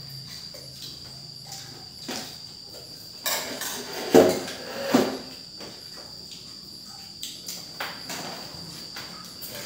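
Spoons and forks clicking and scraping on plates and bowls, with a few louder knocks about four and five seconds in, over the steady high chirring of crickets.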